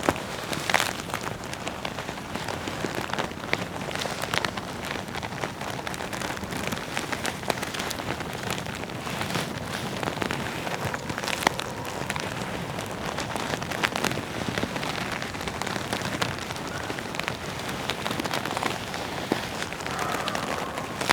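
Leather jacket being rubbed: a steady rustling crackle of leather on leather, with scattered sharp creaks and clicks.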